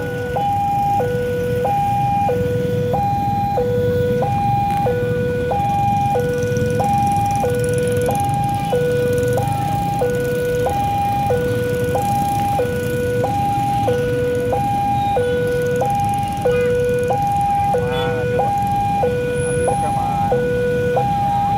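Railway level-crossing warning alarm sounding while the barrier is down: two electronic tones, one high and one low, alternating evenly at about one change every half second. Under it is the low rumble of idling motorcycle traffic waiting at the crossing.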